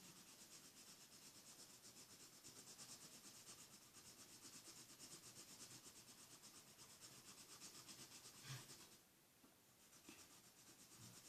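Yellow felt-tip marker colouring on paper: faint, quick back-and-forth strokes at about six a second, easing off about nine seconds in.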